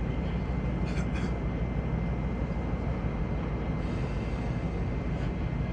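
Steady low engine rumble with a faint steady high whine, and two short clicks about a second in.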